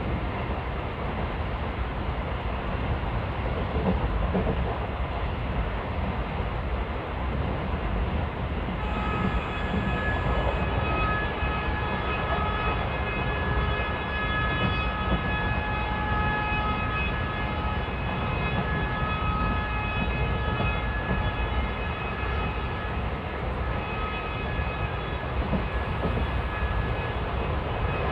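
Passenger train running at speed, a steady rumble from the coach on the track. From about nine seconds in, the WAP4 electric locomotive's horn sounds continuously, a steady held tone over the running noise.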